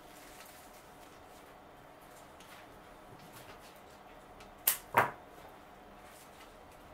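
Scissors snipping through a plant stem: two sharp cuts in quick succession, the second a little louder and longer.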